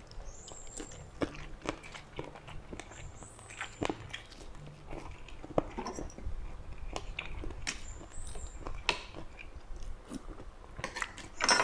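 Close-miked eating: biting and chewing sticky rice with eel curry, wet mouth clicks and smacks coming at irregular intervals.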